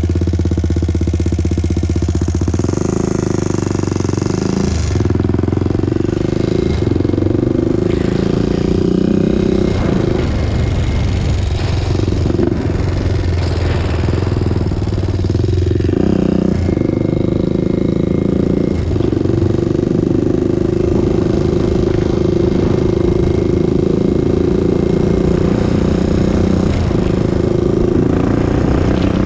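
Honda TRX400EX ATV's single-cylinder four-stroke engine running under way. Its revs dip and pick up again several times.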